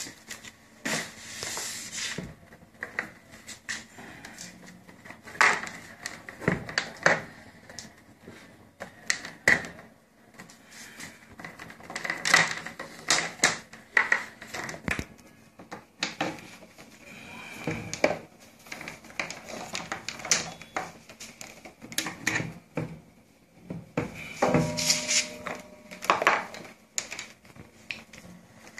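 Irregular clicks, taps and rubbing as cable connector pins are pushed into the sockets of an IFT vacuum therapy unit and into the rubber vacuum cups, with the cables shifting on the table.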